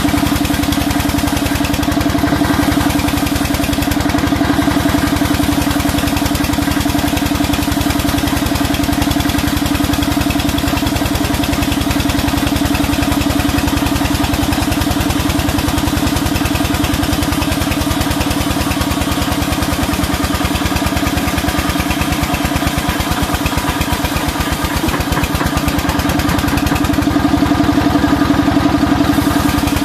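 Engine-driven sawmill running steadily, a constant loud mechanical drone with a strong hum, while a timber beam is fed through the saw.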